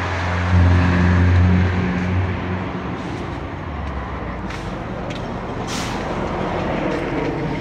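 A heavy motor vehicle's engine rumbling as it passes on the nearby road, loudest in the first two seconds and then dying away into steady outdoor background noise with a few light clicks.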